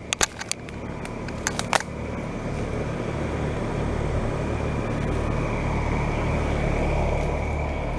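Carrier Comfort heat pump outdoor units running in cooling mode: a steady fan rush over a low compressor hum, slowly getting louder. A few sharp clicks come in the first two seconds.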